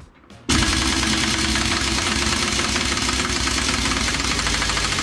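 Cordless impact wrench hammering rapidly and continuously on the crankshaft pulley bolt, starting about half a second in; the bolt is rusted in and does not come free.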